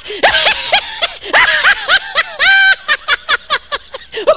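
People laughing hard and high-pitched in quick repeated bursts, with a brief held squeal about halfway through.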